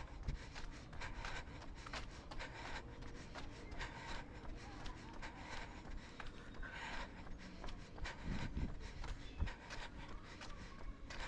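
A jogger's running sounds picked up by a body-worn action camera: quick, regular footfalls and breathing, with rubbing against the microphone.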